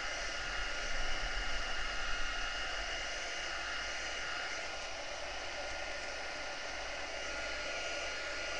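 Heat gun blowing steadily: a constant airy hiss with a thin high whine from its fan motor, drying wet paint on paper.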